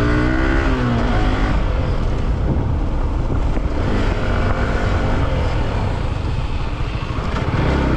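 Yamaha R15 V4's 155 cc single-cylinder engine running under way, with a dense rumble and rattle from the tyres on a rough gravel road. The engine note is clearest at the start and again near the end, and the bike slows during the run.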